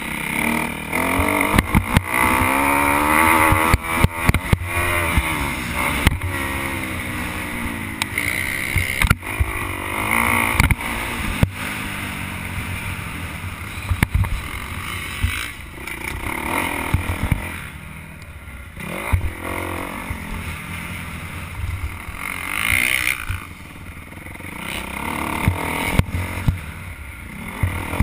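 Dirt bike engine heard from the rider's helmet, revving hard and climbing in pitch over the first few seconds as it accelerates, then rising and falling through the corners and ruts. Sharp knocks from the bike hitting bumps come throughout.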